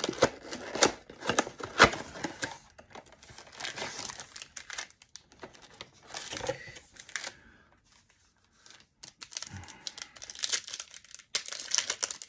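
Cardboard trading-card blaster box being torn and pulled open and its foil packs handled, crackling and crinkling, with a short pause past the middle. Near the end a foil card pack is ripped open.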